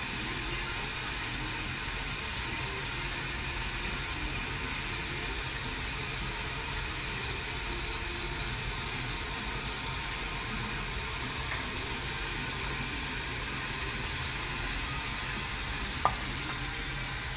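Steady hiss over a low hum, the running noise around a hydrographics dip tank. A single sharp click comes near the end.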